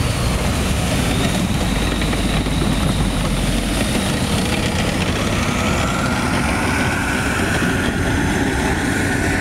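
Tracked armoured vehicle's engine running under load as it drives through deep mud and pulls away. The deep rumble eases after about four seconds, while a thin whine slowly rises in pitch.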